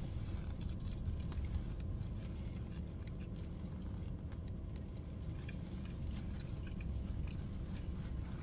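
A person chewing a crispy, hard-fried chicken wing close to the microphone: faint scattered crunches and mouth sounds over a steady low rumble.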